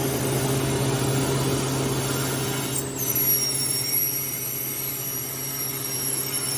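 Home freeze dryer running with a steady hum and hiss. About three seconds in, a high, thin whistle starts and slowly falls a little in pitch as the drain valve is opened and air rushes back into the vacuum chamber.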